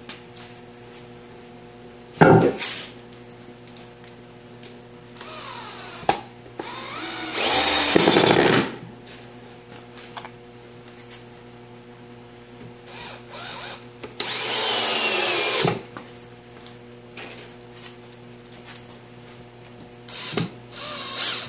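Cordless drill/driver driving screws through pilot holes into a wooden plate: two whining runs of about a second and a half each, with a few short bursts of the motor near the end. A short knock comes about two seconds in.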